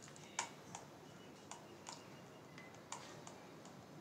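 A handful of irregular sharp clicks of computer input, the loudest about half a second in, over a faint steady hiss.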